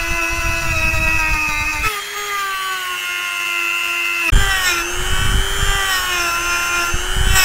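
Small electric rotary tool spinning a brass wire wheel brush against the rusty toothed drive gear of a hand drill: a steady high motor whine that shifts in pitch a couple of times, with the rough scrubbing of the bristles on the metal coming and going.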